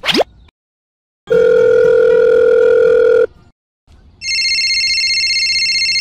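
Telephone sound effects: a steady tone lasting about two seconds, a short gap, then an electronic phone ring with a fast warble starting about four seconds in.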